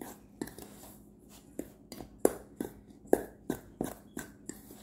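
Clumpy flour, sugar and egg mixture being worked in a metal mixing bowl: irregular sharp knocks and scrapes against the bowl, about two to three a second.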